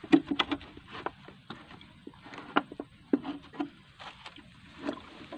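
A string of irregular small knocks and clicks, the loudest right at the start: handling noise of fishing tackle against the wooden planks of a footbridge.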